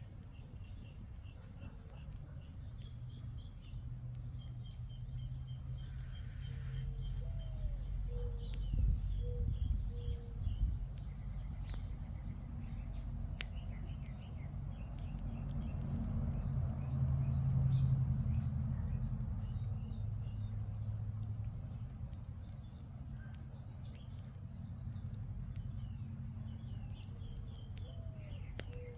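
Small birds chirping repeatedly over a steady low rumble that swells for a few seconds around the middle, with scattered faint ticks.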